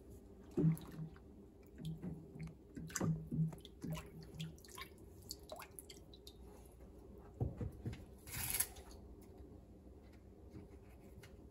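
Water dripping and splashing in a stainless steel kitchen sink as a frozen walleye fillet is dunked and waggled, with clicks and taps of steel needle-nose pliers and the fillet against the sink. About eight seconds in come a couple of low thumps and a brief rushing splash.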